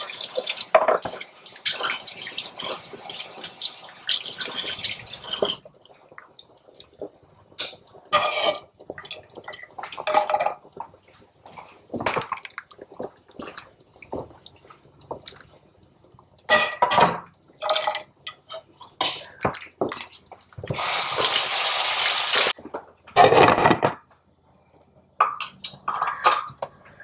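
Tomato sauce being ladled from a stainless steel pot over cabbage rolls in a slow cooker: the sauce splashes and drips, and the metal ladle clinks against the pot, in short bursts with pauses between.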